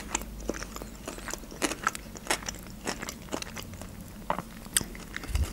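A person chewing food close to the microphone: irregular small wet clicks and crunches of the mouth. A soft low thump near the end.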